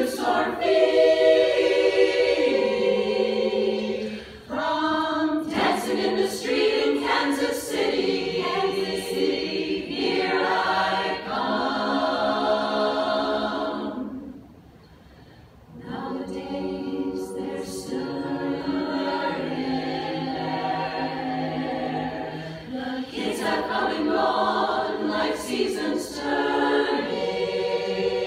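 Women's chorus singing unaccompanied in harmony, holding chords that shift from phrase to phrase, with a short pause about halfway through before they sing on.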